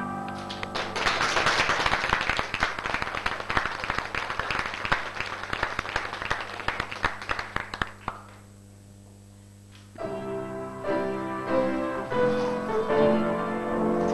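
Audience clapping for about seven seconds, then a short lull. About ten seconds in, piano music begins.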